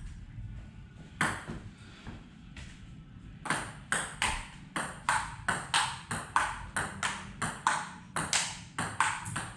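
Table tennis rally: the ball clicking sharply off paddles and table in an even rhythm, about three hits a second. It follows a quiet stretch broken by a single hit just over a second in, and the rally starts about three and a half seconds in.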